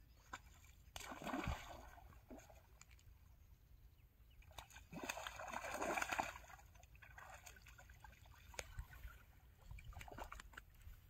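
Hooked fish thrashing and splashing at the water surface as it is played on a rod, in two main bursts about a second in and around five to six seconds in, with smaller splashes near the end.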